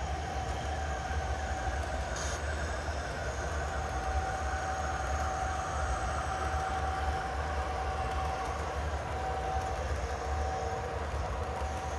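Large-scale model diesel locomotives, two MTH RailKing SD70ACe units and a Bachmann Santa Fe unit, running a freight train along a garden railway, with a steady low rumble and a steady hum.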